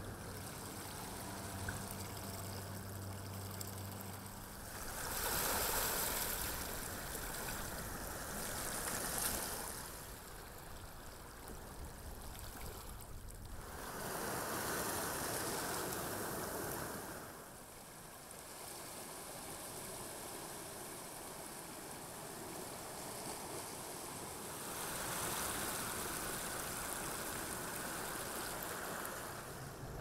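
Seawater washing in and out over tide-pool rocks, a steady hiss of moving water that swells into louder surges four times, each lasting a few seconds.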